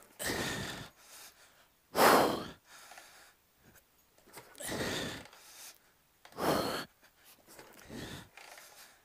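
A man breathing out hard in heavy puffs, about one every two seconds and five in all, the loudest about two seconds in, as he keeps kick-starting a cold kick-start-only V-twin chopper. The engine does not fire.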